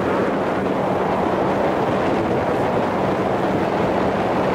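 Steady rushing wind on the microphone out on a boat on a lake, with a faint, steady low hum underneath that fades for a moment mid-way.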